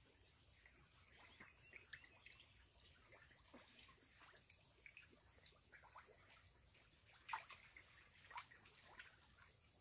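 Faint water sounds from an aerated biofloc fish tank: scattered small drips and splashes at the surface, with two slightly louder splashes near the end.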